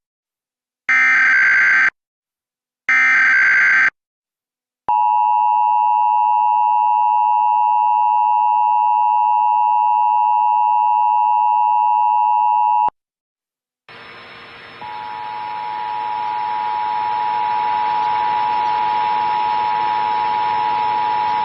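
Emergency Alert System test signal. First come two one-second bursts of the digital data header, a second apart, then the steady two-tone EAS attention signal for about eight seconds. After a brief gap a hiss with a steady tone starts and grows louder.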